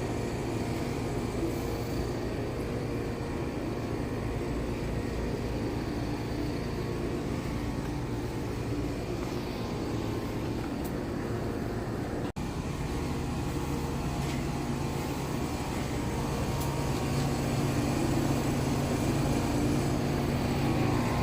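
Outdoor central air-conditioner condensing units running: a steady hum of condenser fan and compressor. After a brief break about twelve seconds in, a deeper hum is stronger.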